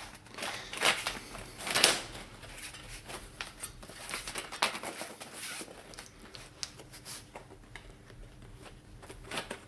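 Bicycle tyre and inner tube being worked onto the rim by hand, with rubber scraping and rustling against the rim. Two louder scrapes come in the first two seconds, then quieter irregular rubbing.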